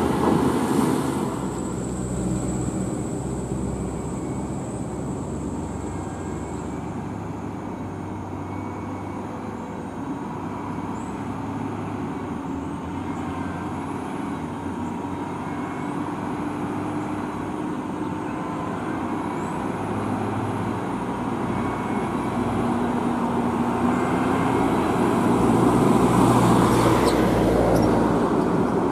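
Heavy diesel trucks in a slow convoy: a loaded low-loader trailer rolls past at the start, then a UD Quester heavy truck hauling crane components approaches with its engine running steadily, growing louder toward the end.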